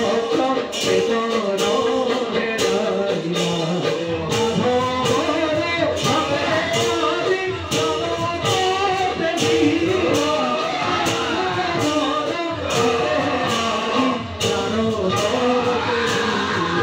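Live accompaniment to a Bhaona fight-dance scene: singing over a steady beat of sharp percussion strokes about twice a second.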